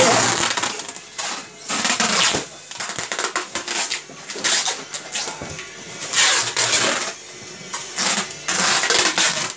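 Packing noises: plastic containers and styrofoam boxes being handled, in repeated bursts of rustling, scraping and clattering.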